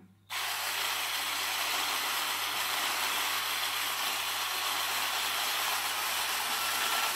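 Corded hand blender with a whisk attachment switching on a moment in and running steadily, whisking in a plastic bowl.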